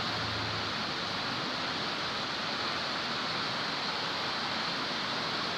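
Steady, even hiss of background room noise, with no distinct handling sounds.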